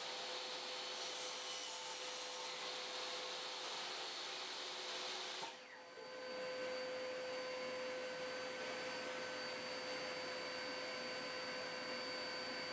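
Steady, faint whir of a running workshop machine, with a thin steady hum in it; it drops out briefly about six seconds in, then carries on.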